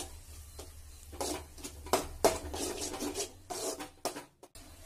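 Steel spoon scraping and stirring a thick bitter gourd fry in an aluminium kadai: a run of short scrapes against the pan, about two a second.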